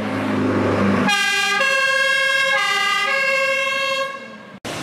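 Fire engine's diesel engine running as it pulls out, then from about a second in its two-tone siren sounding, switching back and forth between a higher and a lower note and fading near the end.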